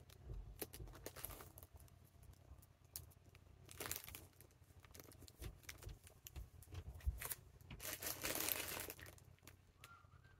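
Plastic packaging crinkling and rustling as it is handled, with scattered light clicks and two longer rustles, about four seconds in and again around eight to nine seconds.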